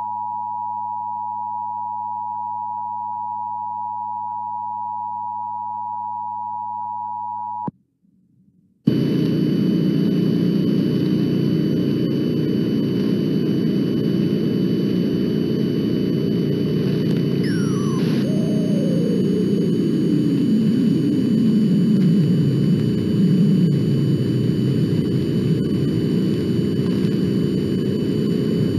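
Emergency Alert System attention signal: a steady two-tone buzz of 853 and 960 Hz held for about eight seconds, cutting off abruptly. After a short gap, a loud steady rushing hiss takes over, with faint high steady whistles and one whistle gliding downward about halfway through.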